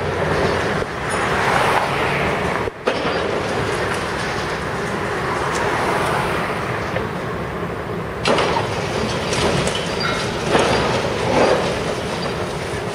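Demolition excavator working its jaw into reinforced concrete: a steady grinding, crunching din, with a few sharper cracks about eight seconds in and again around ten and eleven seconds.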